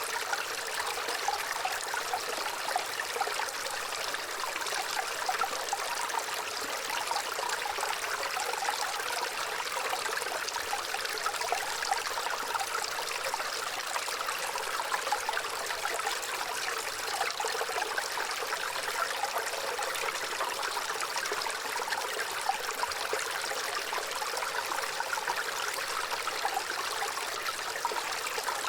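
Gently running water, a steady, even flow with light splashing and little low rumble.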